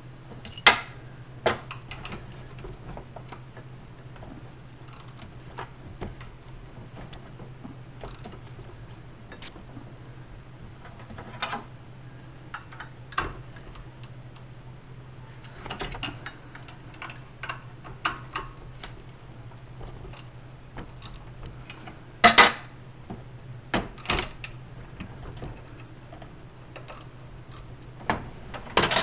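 Ratchet wrench clicking in short runs and metal tools clinking and clanking as bolts are loosened, with a few louder metal knocks, the loudest about three quarters of the way through. A steady low hum runs underneath.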